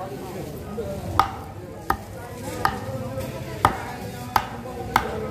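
Large curved fish knife chopping mullet on a wooden cutting board: six sharp knocks of the blade striking the board, roughly every 0.7 seconds.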